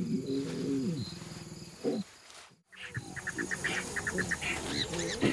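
Lions mating: a low, pitched growl lasting about a second. After a brief gap comes a quick run of short high chirps over faint insect and bird sounds.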